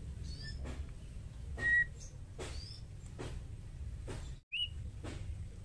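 Female white-rumped shama giving a few short, widely spaced whistled notes, the loudest a brief clear whistle about a second and a half in, over a steady low background rumble.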